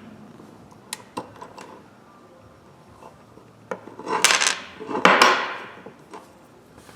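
Small steel ratchet parts and hand tools clinking and clattering against metal. There are a few light clicks, then two louder clattering knocks with a brief ring about four and five seconds in.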